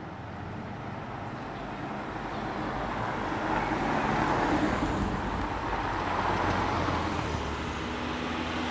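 Ford Mustang driving slowly past at close range, its engine and tyre noise building to a peak about four seconds in, with further cars creeping along behind and another car drawing closer near the end.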